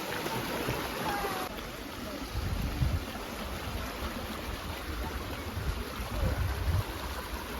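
Stream water rushing steadily, with low rumbles rising now and then.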